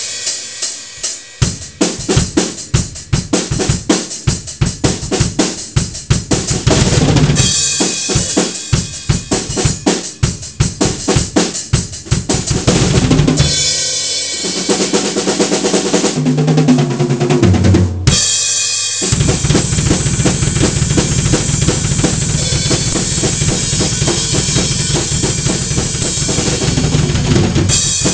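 A drum kit being played: rapid kick and snare hits in quick runs, pausing briefly about two-thirds of the way in, then a denser, continuous stretch of fast hits.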